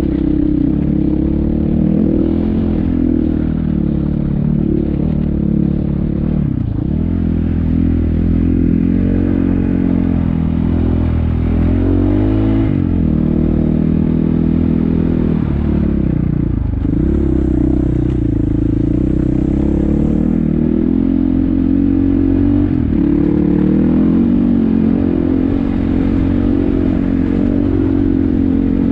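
Off-road vehicle engine pulling uphill on a rocky dirt track, with gravel clattering and scraping under the tyres. The revs dip and climb back about four times.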